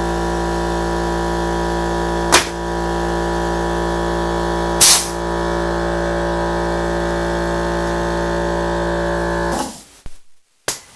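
Pneumatic framing nailer fired twice into plywood: two sharp shots about two and a half seconds apart. Under them runs a steady mechanical hum, which stops abruptly near the end.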